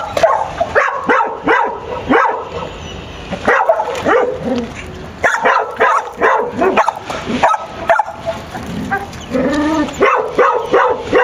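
A dog barking, yipping and whining in quick, irregular bursts, worked up over a marmot it has cornered under a pickup truck.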